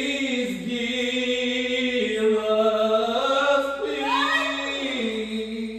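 A person singing unaccompanied, a slow hymn-like melody in long held notes that step up and down between pitches, with a brief upward swoop about four seconds in.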